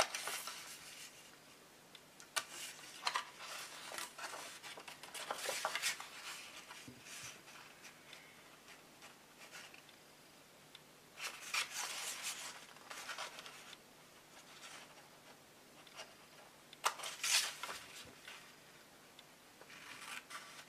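Scissors cutting through cardstock in several short runs of snips separated by quieter pauses, with the rustle of the card being handled.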